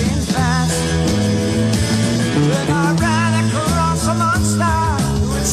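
Rock music playing: a band with guitar and bass, and a sung melody with wavering pitch riding over it.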